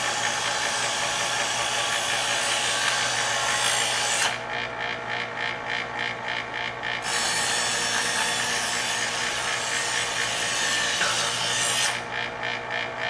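Chef's Choice electric knife sharpener running with a steady motor hum while a knife blade is drawn through its polishing-stage slot. It gives two long hissing grinds of about four to five seconds each, and the motor runs alone between them and near the end.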